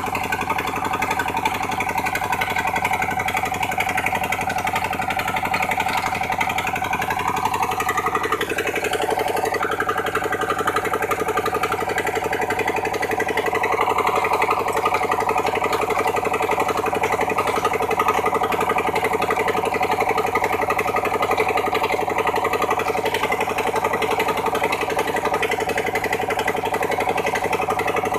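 Engine of a sand-suction pump running steadily, its pitch dipping briefly and picking back up about eight seconds in.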